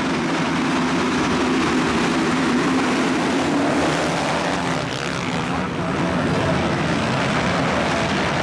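A full gate of MX1 motocross bikes revving hard and accelerating together off the start, many engines overlapping into one loud, continuous noise.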